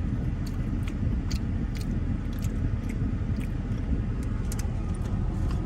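Steady low rumble of a parked vehicle's engine idling, heard from inside the cab, with scattered light clicks from handling the sandwich and its wrapper.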